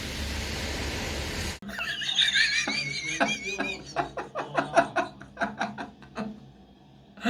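A burst of steady hiss like static, then high-pitched snickering laughter breaking into short bursts that fade away.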